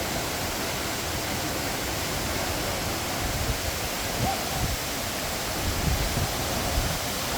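Kaaterskill Falls' waterfall with its steady, even rush of falling water, and some uneven low rumbling in the bass during the second half.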